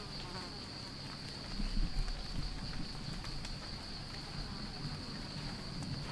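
Insects droning steadily on one high, even pitch, over a low rumble with a few faint clicks. A low thump about two seconds in is the loudest moment.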